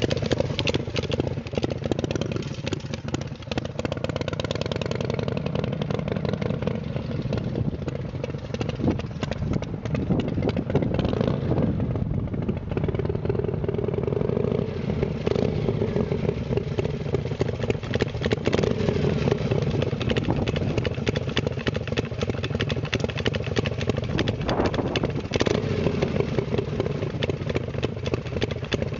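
Custom chopper motorcycle's engine running as the bike rides past and away, then comes back and pulls up close, ending at idle.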